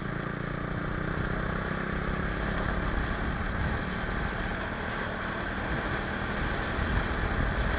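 Single-cylinder sport motorcycle running through an aftermarket slip-on exhaust, a steady engine sound that grows a little louder over the first second and then holds.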